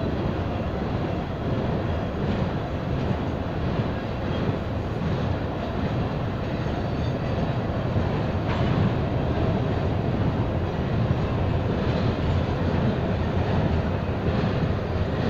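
Norfolk Southern intermodal freight train passing: a steady rumble of trailer and double-stack container cars rolling by on the rails.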